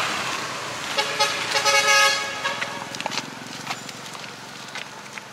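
A vehicle horn honking for about a second and a half, starting about a second in, over the noise of passing road traffic.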